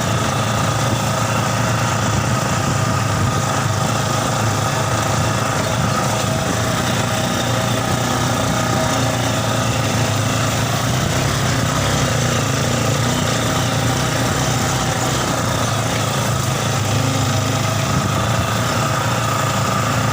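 Yamaha Scorpio Z single-cylinder four-stroke motorcycle engine in a mini buggy, running steadily at an even engine speed.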